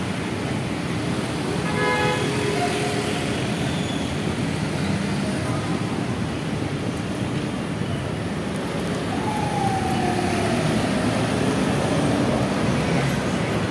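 Busy city-street traffic noise, steady throughout. A short pitched honk sounds about two seconds in, and a falling whine runs from about nine to eleven seconds.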